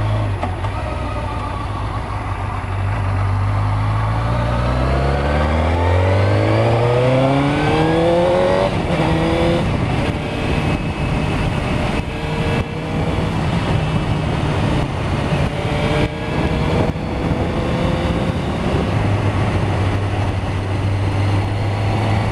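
Suzuki GSX-R ('Gixxer') motorcycle's inline-four engine under way, its pitch climbing steadily over the first nine seconds or so as it accelerates, then holding a steadier cruise, with wind rush on the microphone throughout.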